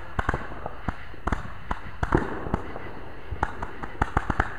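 A 200-shot consumer firework cake firing: a rapid, irregular string of sharp pops, several a second.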